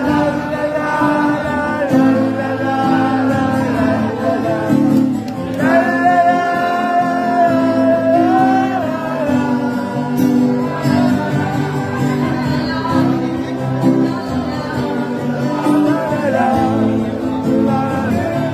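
Live pinoy rock performance: a woman singing at the microphone with acoustic guitar and band backing, holding one long note about six seconds in.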